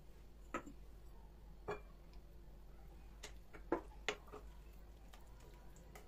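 A metal spoon clinking against glassware, a cut-glass mixing bowl, about five light, separate clinks with a short ring, while soft butter and oil are being stirred.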